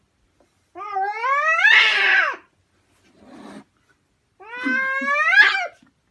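Domestic cat giving two long, drawn-out meows, each rising in pitch and lasting about a second and a half, with a short breathy sound between them.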